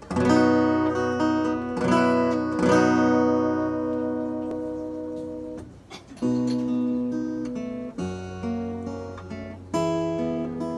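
Acoustic guitar playing a slow instrumental intro: chords strummed every second or few and left to ring out and fade.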